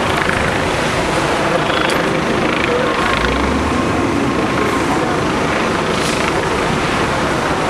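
Fire trucks' engines running steadily at a fire scene, a loud, even din with no distinct events.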